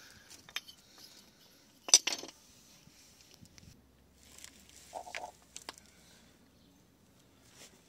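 Brake pads and small metal parts being handled against the caliper: scattered light metallic clinks, with one sharp knock about two seconds in.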